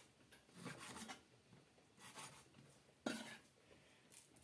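Faint strokes of a chef's knife slicing raw beef into chunks on a wooden cutting board: three scraping cuts, the sharpest about three seconds in.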